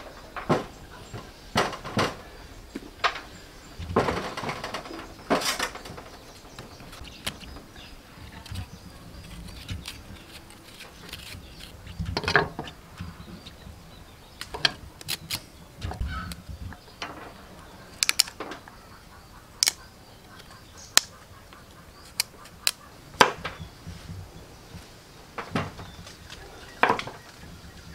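Knife cutting through raw pumpkin on a wooden chopping board: irregular sharp knocks and clicks, roughly one a second.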